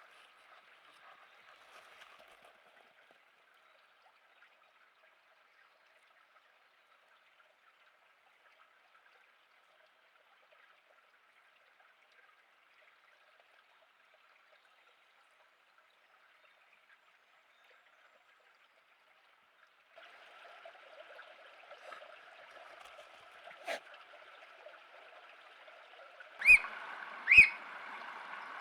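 Faint trickle of running water, near silence for a long stretch, then the water returns louder and two loud, short, high squeaks about a second apart ring out near the end: Eurasian otter squeaks.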